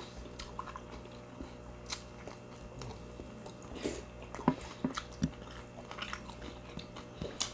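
Chewing and biting into crunchy fried food, a string of irregular crisp crunches, with sharper ones about two seconds in, several between four and a half and five and a half seconds, and one just before the end.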